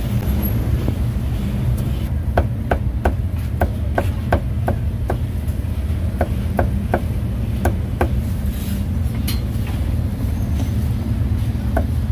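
Steel cleaver chopping cooked meat on a thick round wooden chopping block: a run of sharp knocks, about three a second, starting about two seconds in and stopping around eight seconds, then a few more near the end. Under it runs a steady low rumble of street traffic.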